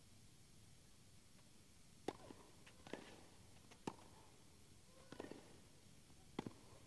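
Tennis ball struck back and forth in a baseline rally on a grass court: about five sharp racket hits, roughly a second apart, over a hushed crowd.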